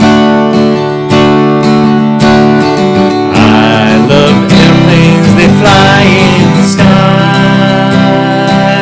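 Acoustic guitar strumming a steady chord accompaniment. A wavering melody line joins it about three and a half seconds in.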